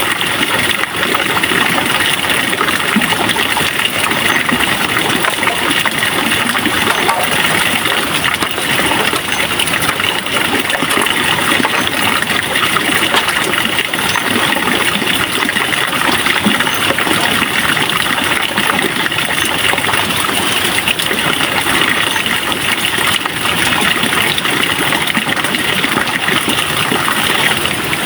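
Steady, unbroken rushing noise.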